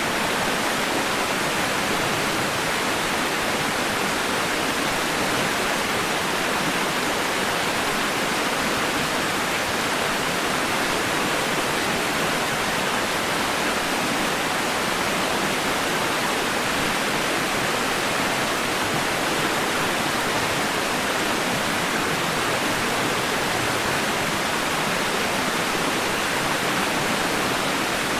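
Steady, unchanging synthetic white-noise hiss, heaviest in the middle and upper range with little bass, played as a sleep aid to settle a baby.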